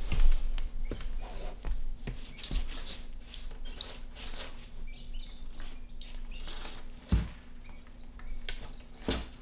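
Quail chick peeping in short, high calls while held in an Argus monitor's jaws, mixed with the monitor's claws scratching and clicking on the bathtub. A heavier knock comes about seven seconds in and again near the end.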